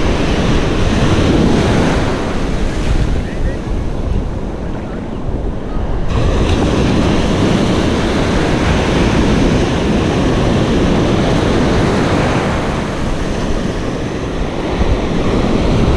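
Ocean surf breaking and washing up the beach, a steady rushing of waves, mixed with wind buffeting the microphone.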